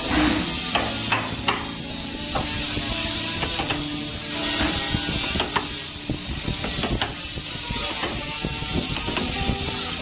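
Handheld electric trimmer (compact wood router) cutting a recess into a wooden door for a lock, a continuous rattling, clattering cut with many sharp clicks.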